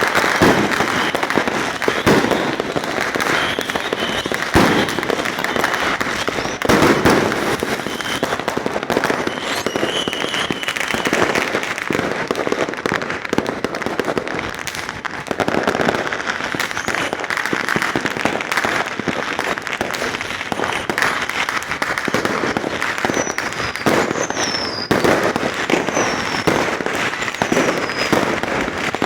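Many fireworks and firecrackers going off without pause, the bangs overlapping into a steady crackling barrage with some louder booms. High wavering whistles rise over it near the end.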